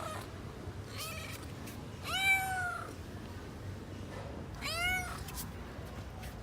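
A kitten meowing three times: a faint short meow, then a louder drawn-out one, then a third.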